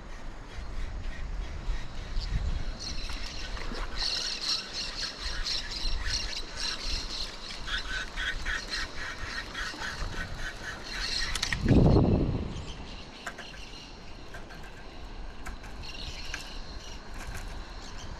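Wild birds calling in rapid runs of quickly repeated high notes over a steady low background rumble. About two-thirds of the way through comes a brief low rush of noise, the loudest moment.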